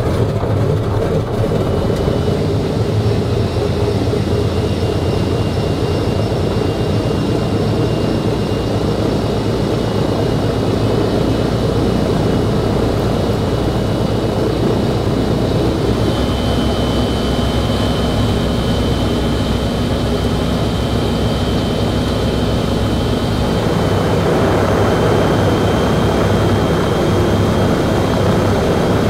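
The Boeing B-29's Wright R-3350 radial engines are running at idle, heard from inside the cockpit, as another engine is started and joins in. A thin, steady high whine runs over the drone, and the sound grows somewhat louder about 24 seconds in.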